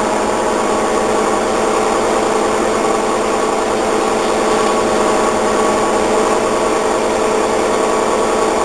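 Washing machine running its spin cycle: a steady, loud mechanical hum with several held tones.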